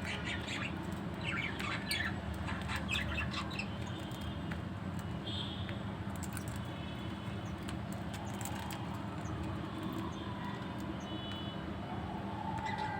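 Budgerigars chirping and squawking: a busy flurry of calls in the first few seconds, then scattered quieter chirps and short whistles.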